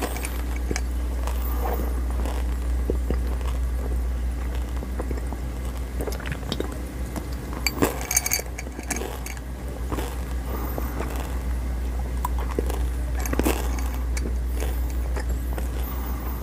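Xylitol chewing gum chewed close to a clip-on microphone: scattered sharp mouth clicks and crunches, with a louder cluster of clicks about eight seconds in, over a steady low hum.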